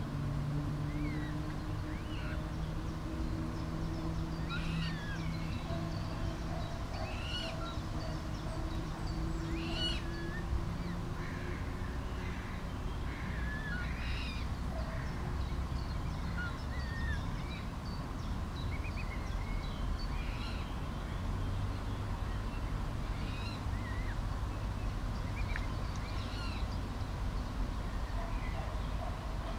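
Birds calling: short high chirps and calls scattered throughout, over a low steady hum.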